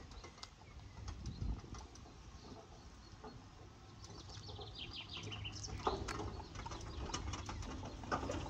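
Birds calling, with a short falling run of high chirps around the middle. Under them runs the faint low noise of a ride-on mower, growing louder as it comes closer.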